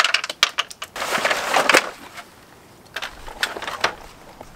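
Hard plastic grille parts clicking and clattering as retaining tabs and clips are pried out and the grille is handled, with a scraping sound lasting under a second about a second in and a few more clicks near the end.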